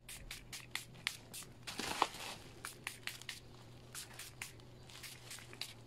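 Packaging of a mail-order parcel rustling with many scattered sharp crackles as it is handled and opened.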